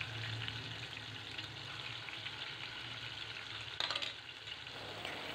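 Marinated chicken pieces frying in warm oil in a metal pot: a quiet, steady sizzle, with a short clatter about four seconds in.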